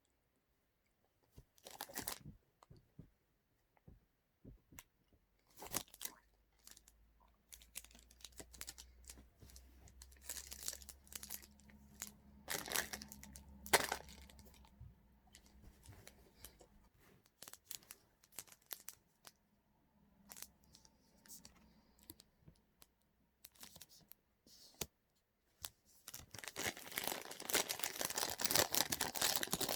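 Snack wrapper being torn open and crinkled in scattered crackles, growing into dense continuous crinkling near the end.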